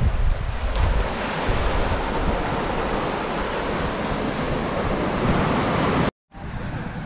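Small sea waves breaking and washing up a sandy beach in a steady surf wash, with wind buffeting the microphone. About six seconds in, the sound cuts out for a moment and then a quieter steady noise resumes.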